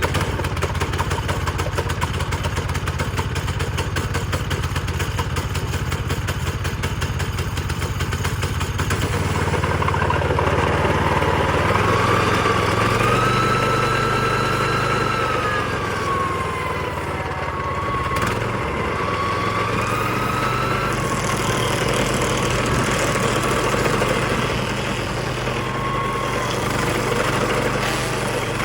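Small gas engine of a DR Pro XL stump grinder running. About nine seconds in its sound changes to a steadier drone with a high whine that wavers up and down in pitch.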